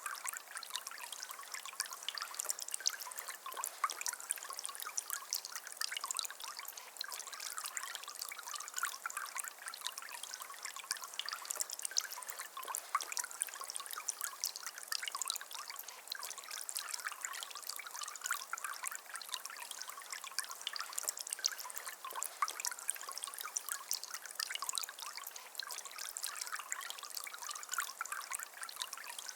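Water trickling and splashing down the tiers of a Sunnydaze Turtle Trio polyresin garden fountain: a steady trickle with many small splashes.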